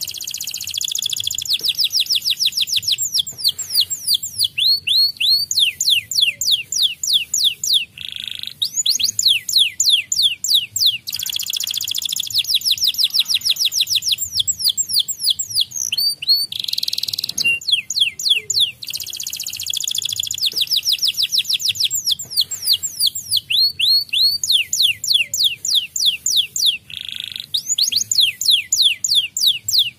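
White canary singing continuously: fast trills of repeated falling notes, about ten a second, alternating with short buzzing rolls and brief pauses between phrases.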